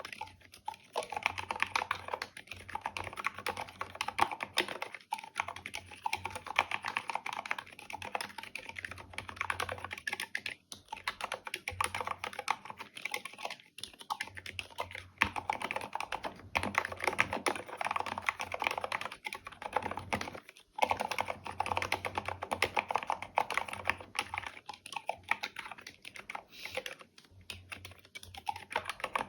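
Mechanical keyboard typing on stock, unlubricated Gateron Black silent linear switches: rapid, continuous key strokes with a few brief pauses.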